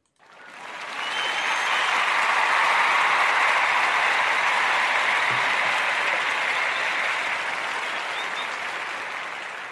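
Audience applause, swelling up over the first second or two and then slowly fading away toward the end.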